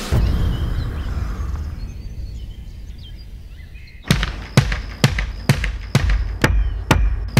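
A large drum struck with sticks in a steady beat, about two hits a second, starting about four seconds in. Before that a low rumble fades out, with birds chirping faintly.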